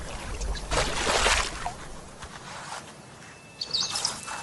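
Water splashing in a small plastic tub as a honey badger climbs out, loudest about a second in, then settling.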